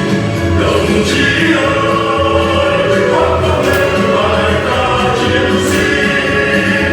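Music: a choir singing a march song, with held notes at a steady level.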